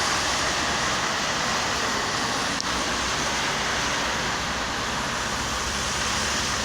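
Heavy rain pouring down, a loud, steady, even hiss with a low rumble underneath.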